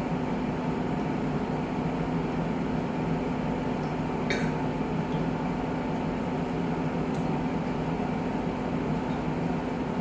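A steady machine hum, of the kind a fan or air conditioner makes, with one brief click about four seconds in.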